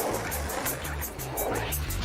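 Background music with a steady beat: a repeating bass line under regular high ticks.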